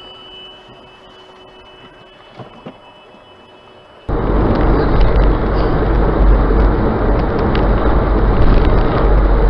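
Faint hiss with a couple of soft knocks. About four seconds in, it cuts abruptly to loud, steady road and engine rumble heard from inside a moving car's cabin through a dashcam, heaviest at the low end.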